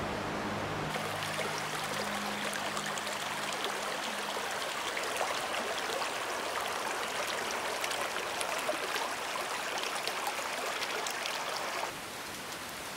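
Shallow creek running over stones, a steady babble of water. It drops away about a second before the end.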